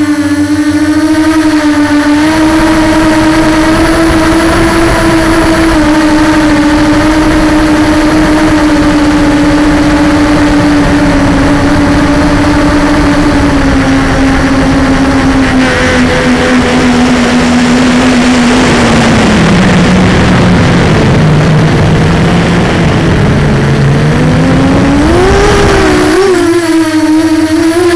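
Small remote-controlled aircraft's motor and rotors whining steadily, heard from its onboard camera. About two-thirds of the way in the pitch sinks and a rushing air noise grows as the throttle is cut for a descent, then the whine climbs back up near the end as power comes back on low over the ground.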